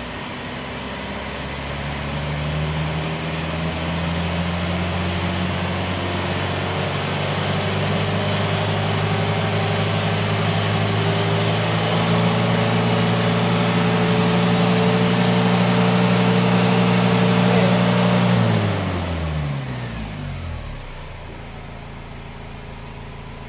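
Isuzu Panther 2.5's four-cylinder diesel engine, warmed up with its thermostat fitted, held at high revs for a smoke-opacity emissions test. It runs steadily at speed, then drops back to idle near the end as the throttle is let off.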